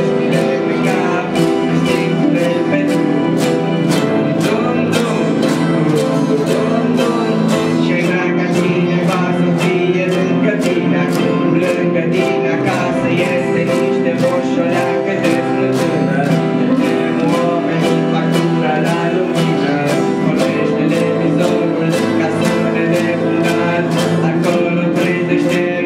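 A teenage boy singing a song into a microphone, backed by several acoustic guitars strumming a steady rhythm and a group of children's voices singing along.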